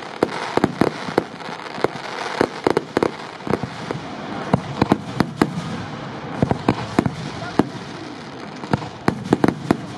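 Fireworks display: many sharp bangs of bursting shells, coming in irregular clusters of several a second, over a continuous crackling hiss.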